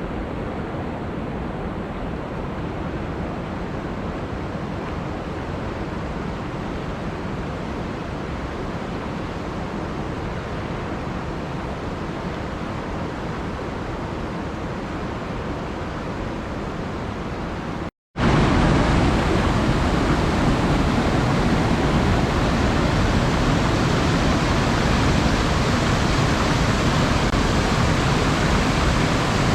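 Flowing water rushing steadily. About two-thirds of the way through it cuts out for a moment and comes back louder and brighter.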